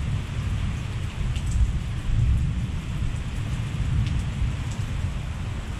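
Heavy rain falling steadily in a severe thunderstorm, over a low rumble that swells and fades, with a few sharp ticks.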